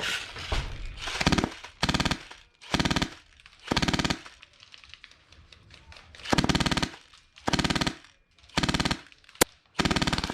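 Airsoft gun firing about eight short full-auto bursts of roughly half a second each, a fast, even rattle of shots, with one sharp single crack shortly before the end.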